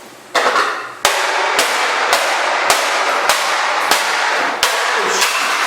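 A Dirt Devil upright vacuum cleaner being smashed with repeated hard blows, about nine sharp cracks roughly every half second, over a steady loud rushing noise.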